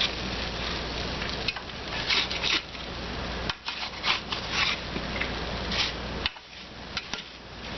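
Roasting potato cubes being flipped over in a hot baking pan: a utensil scraping and rubbing across the pan in a series of irregular strokes, easing off briefly near the end.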